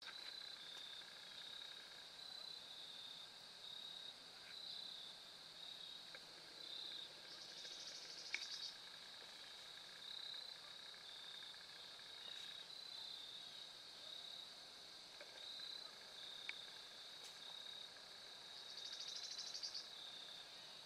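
Faint, steady chorus of insects trilling continuously, with two short rapid trills, one about eight seconds in and one near the end, and a few faint ticks.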